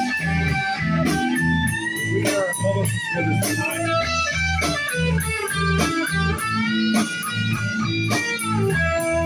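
Lead electric guitar playing an instrumental break with bent notes over a live band's bass and drums.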